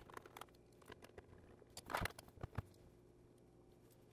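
Faint clicks and knocks of sewing-machine parts being handled during reassembly: one at the start, then two about two seconds in, half a second apart, over a low hum.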